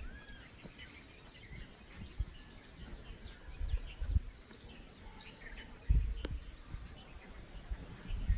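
Scattered bird chirps over outdoor background noise, with a few low thumps and rustles close to the microphone, the loudest about six seconds in.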